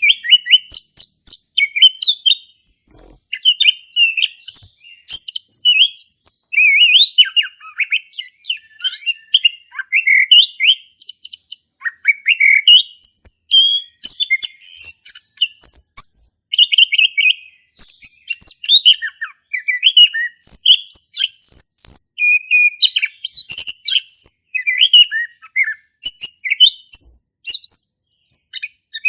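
A male chestnut-capped thrush singing a long, unbroken, varied song: a rapid run of quick chirps, trills and whistled notes with no pauses.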